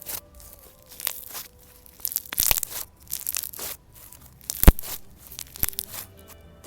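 Slime being worked by hand, crackling and tearing in irregular bursts, with one sharp pop about two-thirds of the way through.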